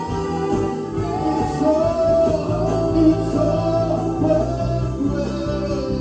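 Gospel praise-and-worship song with a singer holding long notes over a steady band backing.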